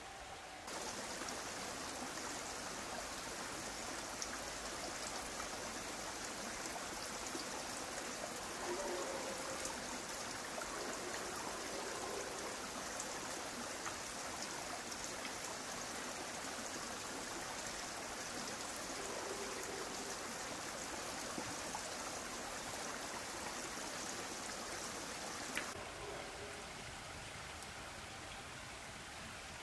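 Steady rain falling, with scattered ticks of drops. Near the end it drops suddenly to a quieter hiss.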